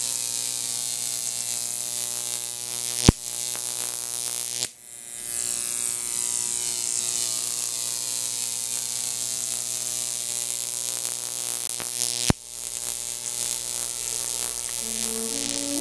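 A Jacob's ladder's high-voltage arc, fed by a 15,000-volt neon sign transformer, buzzing and hissing steadily between copper rod electrodes, with two sharp snaps about 3 and 12 seconds in and a brief drop in the buzz near 5 seconds. Music comes in near the end.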